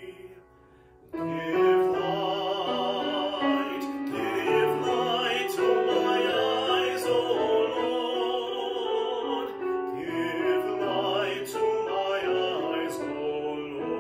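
A man singing in classical, operatic style with vibrato, accompanied by a grand piano. It starts after a short pause about a second in.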